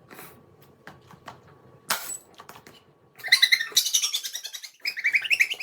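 A bird's rapid, repeated chirping calls, in two quick runs in the second half, after a quiet stretch with a single sharp knock about two seconds in.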